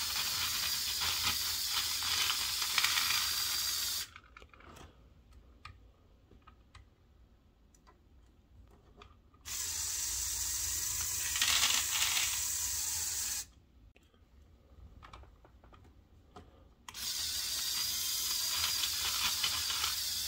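Lego Power Functions medium motor whirring as it drives the Technic excavator's gears and linear actuators, in three runs of about four seconds that start and stop abruptly. Between the runs there are quiet pauses with faint clicks.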